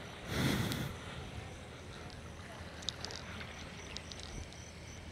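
Wind buffeting a phone's microphone: a steady low rumble, with one strong gust about half a second in.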